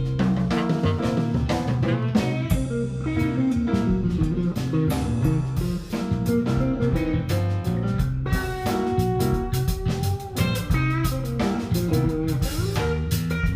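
A blues band jamming instrumentally: guitar playing over a drum kit with a steady beat, with one long held guitar note about two-thirds of the way in.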